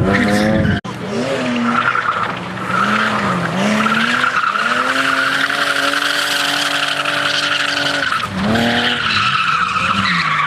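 BMW E30 saloon drifting: its engine revs rise and dip, then hold high and steady for a few seconds before dropping and climbing again, with tyres squealing through the slide. The sound drops out briefly about a second in.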